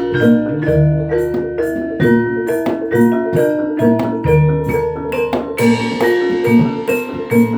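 Javanese gamelan music accompanying Barongan: struck metal keys ringing out a short repeating melody over low drum strokes, with regular sharp metallic clashes.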